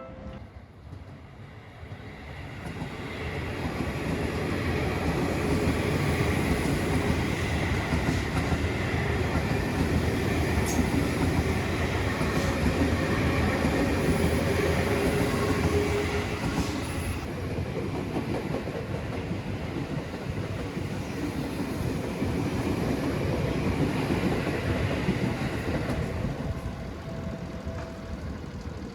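Seibu Shinjuku Line electric commuter train passing close by. The rumble builds over the first few seconds and fades near the end.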